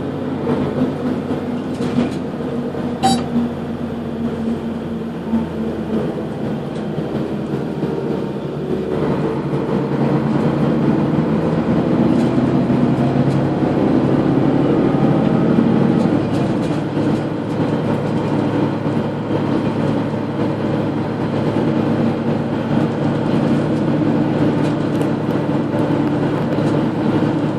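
Mercedes-Benz Citaro three-axle city bus heard at the rear, its engine and drivetrain running with several steady droning tones and unusual noises. The tones shift in pitch and get a little louder about nine seconds in, with a couple of short clicks early on.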